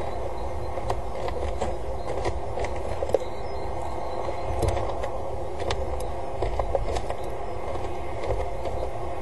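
Peregrine falcon scratching at the gravel of its nest-box scrape, giving irregular small clicks and scrapes over a steady background hum and low rumble.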